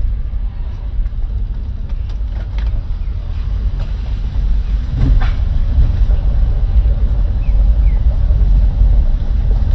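Car cabin noise while driving slowly: a steady low rumble of engine and tyres, growing a little louder as the car speeds up, with one brief knock about five seconds in.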